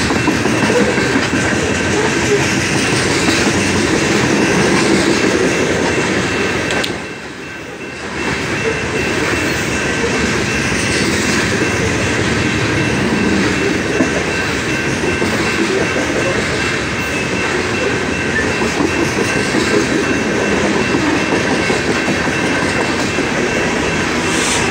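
Loaded coal hopper cars rolling past close by: steel wheels running on the rails in a steady, loud rumble with a thin, steady high ringing tone over it. The sound dips briefly quieter about seven seconds in.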